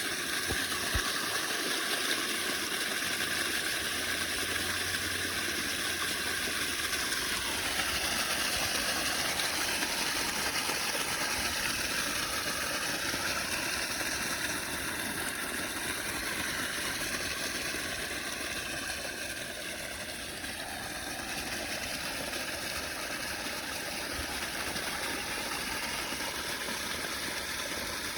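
Water rushing steadily in a constant, even rush.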